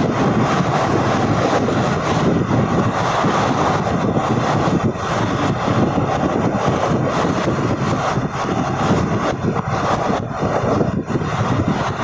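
Train running at speed: a steady loud rush and rumble of wheels on rail and wind, with quick irregular clattering throughout.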